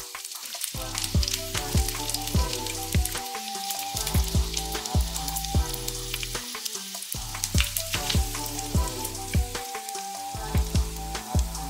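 Dallae and egg-batter pancakes sizzling in hot oil in a frying pan, a steady hiss, over background music with a regular beat.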